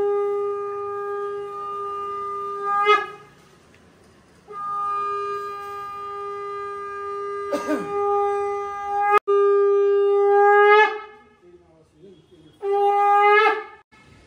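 Conch shell (shankha) blown in long, steady blasts, about four of them, each rising in pitch as it ends. It is the traditional call that opens the Ganesh puja.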